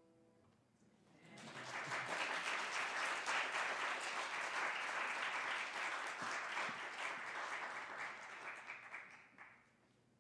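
Congregation applauding, the clapping starting about a second in and dying away near the end. The last piano chord of the song fades out at the very start.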